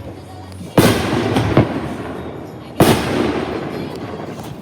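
Fireworks going off: two loud bangs about two seconds apart, each trailing off slowly, with a couple of smaller pops after the first.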